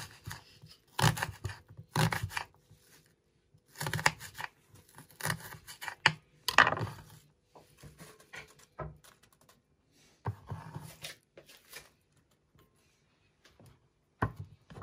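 Kitchen knife dicing a shallot on a wooden cutting board: irregular slicing and chopping strokes with short scraping sounds, busiest in the first half and sparser later.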